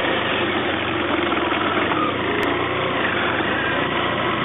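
BMW F800ST's parallel-twin motorcycle engine running steadily at low revs as the bike rolls slowly along.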